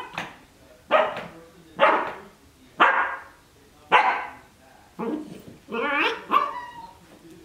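Cardigan Welsh Corgi puppy barking in play, short sharp barks about one a second, with a longer run of barks about six seconds in.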